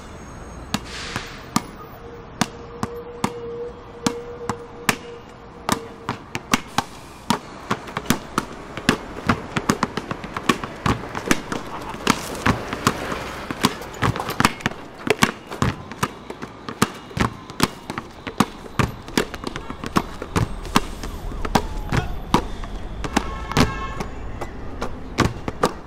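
Basketballs dribbled on hard ground in rhythm: a few single bounces at first, then more and more balls joining until many players' dribbles make a dense, layered beat.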